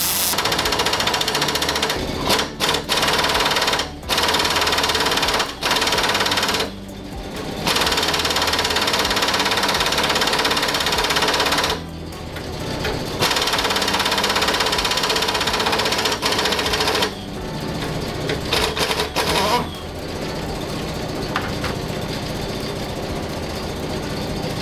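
Pneumatic impact wrench hammering in a series of bursts of one to four seconds with short pauses, stopping about four-fifths of the way through. It is working on the Case 580C brake's adjusting nut, which should turn freely on the actuating rod but is rusted in place.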